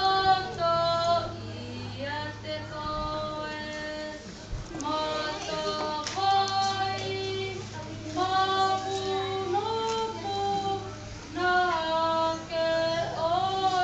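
A child singing a solo melody, holding long notes that slide from one pitch to the next, in phrases with short breaths between them.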